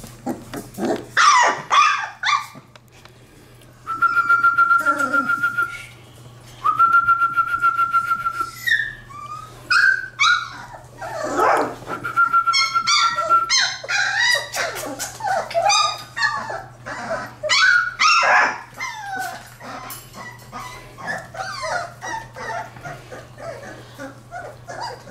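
Three-week-old black Labrador retriever puppies whining, yipping and squealing over one another, with several long, steady high-pitched whines.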